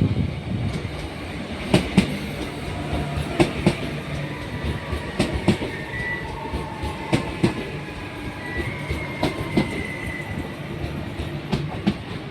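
Electric commuter train passing, its wheels clacking over rail joints in an irregular series of sharp clicks over a steady running rumble. A faint high wheel squeal comes in about halfway through and again a little later.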